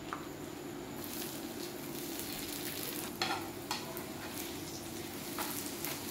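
Paratha dough frying in hot oil on a flat non-stick pan, sizzling from about a second in, with a few sharp clicks of metal tongs on the pan as it is pressed and turned.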